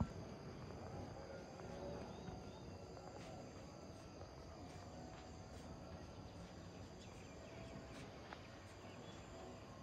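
Quiet outdoor ambience with a few faint chirps and light ticks.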